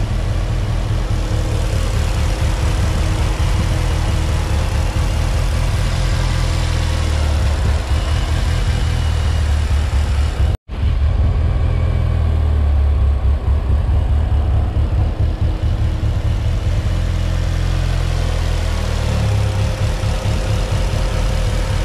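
Mitsubishi Lancer Evolution VIII's turbocharged 4G63 four-cylinder idling steadily, its earlier cold-start popping gone, as it warms toward operating temperature. The sound cuts out for a split second about halfway through.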